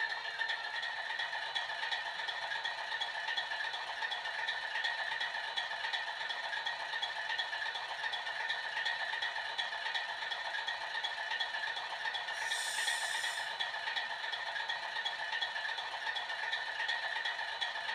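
Sound decoder in a PIKO H0 model of a BR232 'Ludmilla' diesel locomotive playing the engine idling steadily through the model's small speaker, thin and rattly with no bass. A brief high-pitched sound comes in about two thirds of the way through.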